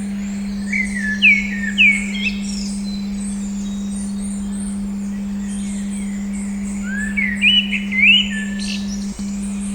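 A steady 200 Hz tone hums under recorded birdsong. Clear whistled chirps with quick rising and falling slides come in two bursts, about one to two seconds in and again near eight seconds, with fainter high chirping throughout. The tone dips briefly near the end.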